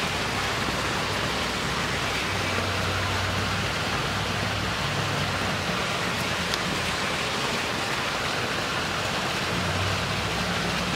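Steady outdoor background noise: an even hiss with a faint low hum that comes and goes.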